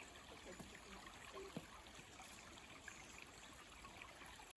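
Faint creek water running, a steady soft rush.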